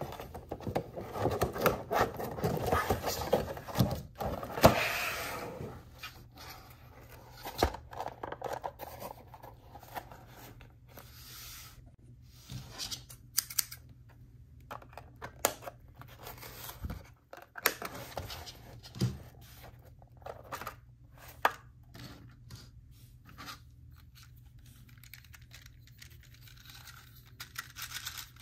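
Rigid clear plastic packaging being pried open and handled, crackling and scraping for the first several seconds, followed by scattered clicks, taps and scrapes as the plastic toy is taken out and handled.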